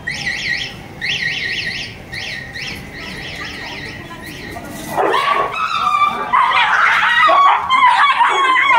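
Stray dogs fighting over food: a run of short, high whimpering squeals, then from about five seconds in loud snarling and yelping as two dogs tangle.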